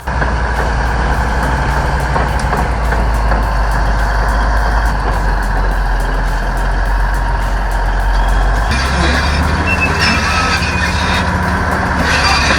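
Large crawler bulldozer working: its diesel engine runs steadily under load, with a reversing alarm beeping. The low drone changes in character about two thirds of the way through.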